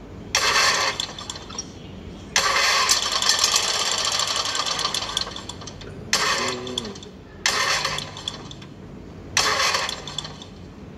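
Simulated engine sound from an RC crawler's sound-effect unit: a steady idle with about five louder bursts that cut in suddenly, each lasting one to four seconds.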